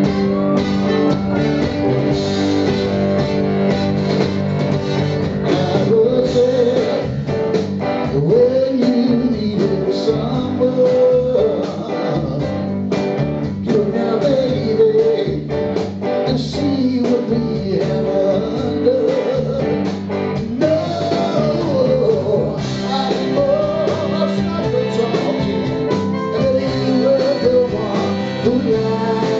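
Live rock band performing: electric guitar and drums under a wavering lead melody.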